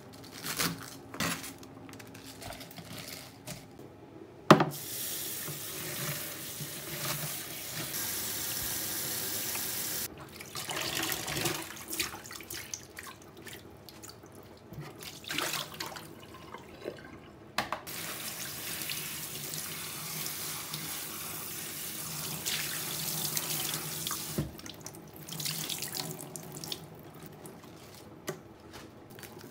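Kitchen tap running into a sink while cabbage leaves are rinsed by hand, in two long stretches about five and six seconds long, with splashing and handling noises in between. Before that, a knife chops through cabbage leaves on a plastic cutting board a few times, and a sharp knock comes just as the water starts.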